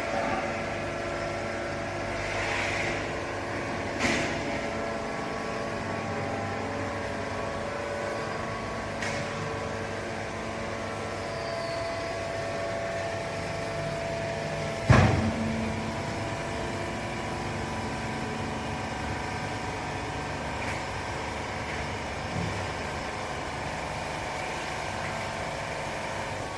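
Hydraulic baling press running: a steady motor and pump hum, with a few light knocks and one loud clank about fifteen seconds in.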